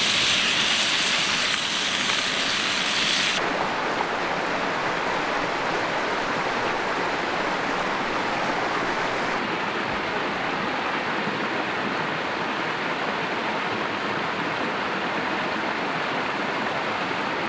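Bacon sizzling in a pan for about the first three seconds, cutting off abruptly, then the steady rush of a mountain creek running over rocks.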